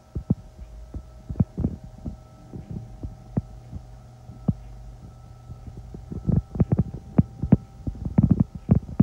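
Road construction heard from inside the building: irregular heavy, low thuds and knocks, bunching into a rapid cluster in the last few seconds, over a steady machine hum.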